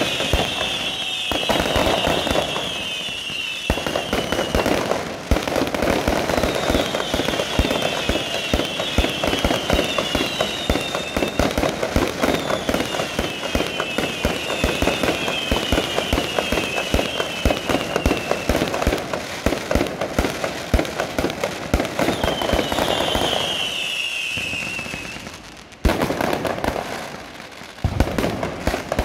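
Fireworks display going off in a dense, continuous barrage of crackling and sharp bangs, with runs of shrill falling whistles. The barrage eases briefly near the end before loud bangs start up again.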